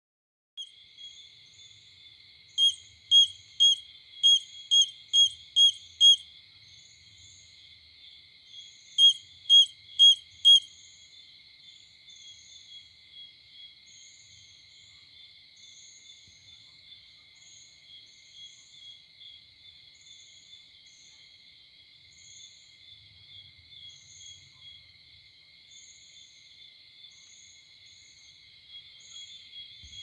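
A cricket chirping, about two clear high chirps a second: a run of seven, a pause, then four more, after which the chirping goes on only faintly. A steady high-pitched hum runs underneath.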